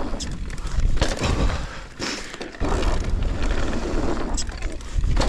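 Mountain bike ridden hard over dirt jumps: wind buffeting the rider's microphone and the tyres running on dirt, with sudden thuds and rattles of the bike, one about a second in and another a little after two and a half seconds.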